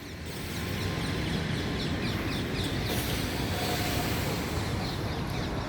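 Steady outdoor city background noise, a low rumble with a hiss over it, swelling a little in the first second. Faint short bird chirps sound over it.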